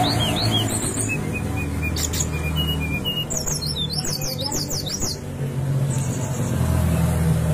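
Brown-chested jungle flycatcher singing: short falling whistled notes, then a quick run of steep downward sweeps about three seconds in. A steady low hum runs underneath.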